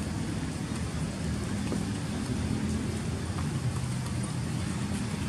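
Steady low rumbling outdoor background noise, like distant traffic or wind, with no distinct calls or knocks.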